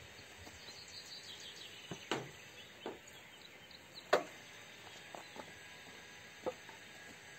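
A metal spoon scraping and prying into the flesh of a round zucchini, giving a handful of sharp crunches and clicks, the loudest about four seconds in. Birds chirp faintly over a steady outdoor hiss near the start.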